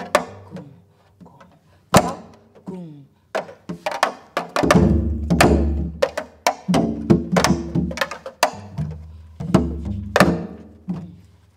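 Janggu played in the jungmori rhythm of pansori accompaniment: deep open strikes on the left-hand (gung) head and sharp clacks of the thin bamboo stick on the right (chae) head. A woman's voice sings along between the strokes.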